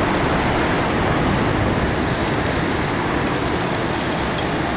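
Steady rush of surf and wind, an even noise with no distinct events.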